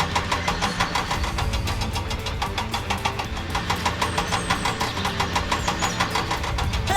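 Tractor-type engine chugging steadily, a fast even beat of knocks over a low hum.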